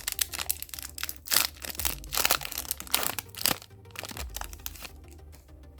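Foil wrapper of a Yu-Gi-Oh booster pack crinkling and tearing as it is opened by hand: a quick run of sharp, irregular crackles that dies down about four seconds in.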